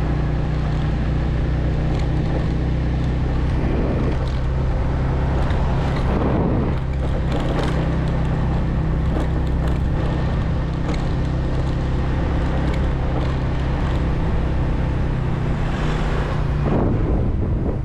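Motorbike engine running steadily at road speed, with wind noise on the microphone. Near the end a minibus passes close alongside.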